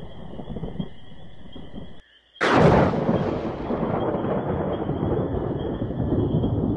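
Thunder sound effect: low rumbling, a brief drop-out about two seconds in, then a sudden loud thunderclap that fades into continued rumbling.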